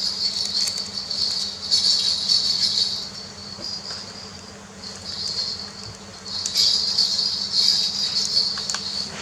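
Insects trilling in a high, narrow pitch, swelling and fading in bursts of a second or more, with a few small clicks.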